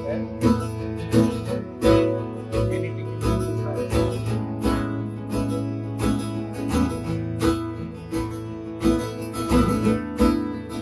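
Acoustic guitar strumming a steady rhythm, about three strums every two seconds, in an instrumental passage of a song with no singing.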